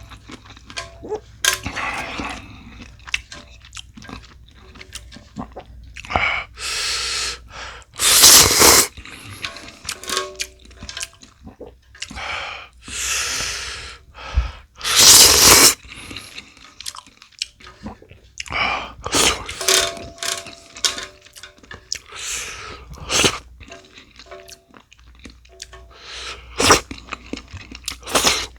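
A person eating instant ramyeon with kkakdugi radish kimchi: chewing, crunching and clicking mouth sounds, broken by several loud noisy bursts about a second long, the loudest about 8 and 15 seconds in.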